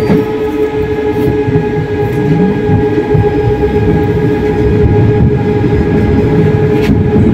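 Moderus Beta MF20AC tram running along the track, with a steady electrical whine over the low rumble of the wheels on the rails. A single sharp knock comes near the end.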